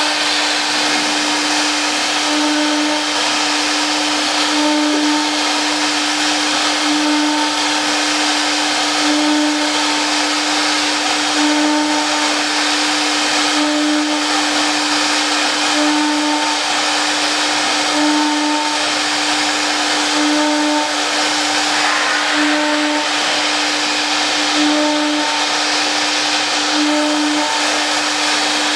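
Panel furniture CNC router spindle running and cutting a board: a steady motor whine that swells about every two seconds, over a broad hiss.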